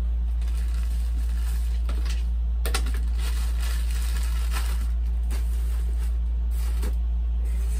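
Clear plastic packaging bags crinkling and rustling as they are handled, with a sharper click about three seconds in, over a steady low hum.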